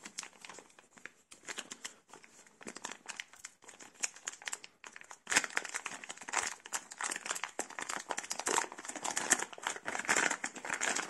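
Thin clear plastic bag crinkling as it is peeled and pulled off a small camera by hand, with sparse rustles at first and a busier, louder crinkling from about halfway through.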